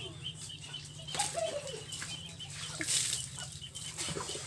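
Water splashing in short bursts, the two strongest about a second in and near three seconds in, over a steady low hum.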